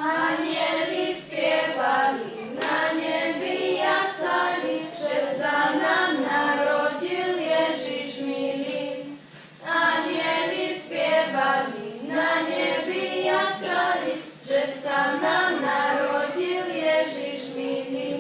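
Group of children singing together as a choir, with a short break between phrases a little past the middle.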